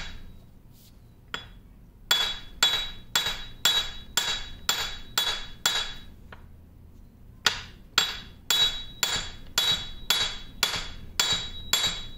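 Hammer tapping on a steel shaft in a cast-iron lathe apron, driving it out of its bore: sharp, ringing metallic blows at about two a second, a single tap about a second in, then two runs of taps with a short pause between. The shaft is moving, working its way through slowly.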